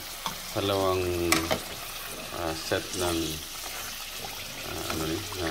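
Sweet potato wedges sizzling as they deep-fry in hot oil in a wok, with a metal slotted spatula stirring them and clicking against the pan once. A voice speaks briefly now and then in the background.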